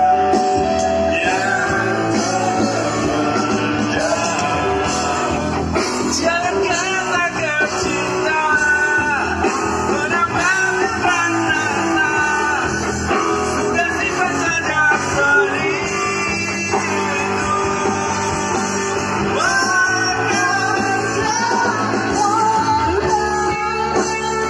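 Live band playing a pop-rock song over a stage PA: electric guitars and drums with a lead melody line carrying on between the sung verses.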